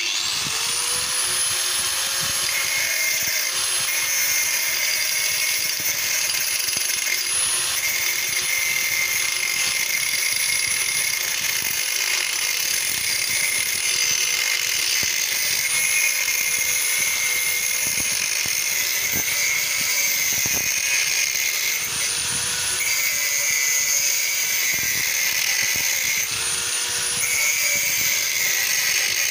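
Electric angle grinder with a thin cutting disc spinning up and then running steadily as it cuts into the steel shell of a hermetic refrigerator compressor: a high whine over a grinding hiss, dipping in pitch now and then as the disc bites.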